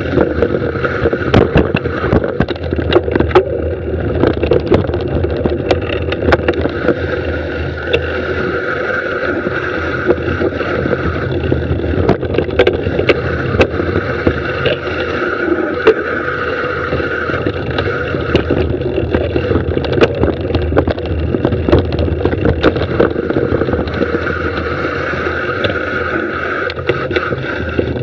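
Mountain bike rolling fast down a dirt singletrack: a continuous rushing noise full of clatters and knocks as the bike rattles over rocks and roots, with a steady high whir that comes and goes.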